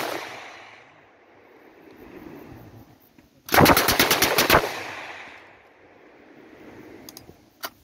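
7.62 mm M60 machine gun firing a short burst of about a second, its shots echoing away for a second or two afterwards. The echo of an earlier burst fades at the start, and a sharp crack sounds near the end.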